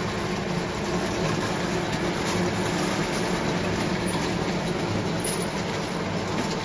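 Wave soldering machine running: a steady mechanical noise with a low hum underneath.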